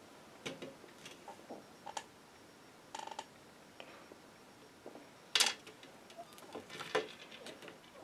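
Small plastic toy pieces tapping and clicking as a toy figure and its paintbrush are handled against a plastic toy easel, with a short rattle about three seconds in and a louder brief scrape about five seconds in.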